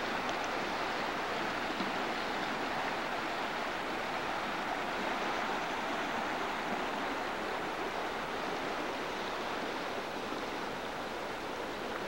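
River water rushing steadily over rocks: a continuous, even rush with no breaks.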